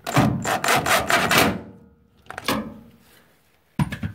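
A screwdriver turning a screw into the drain pump's plastic mounting foot on the washer's frame: scraping and grinding for about a second and a half, a shorter burst about two and a half seconds in, and a short sharp knock near the end.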